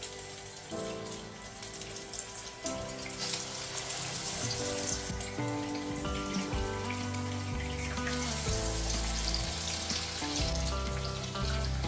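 Food frying in hot oil, a steady crackling sizzle that grows stronger a few seconds in, under background music with a bass line.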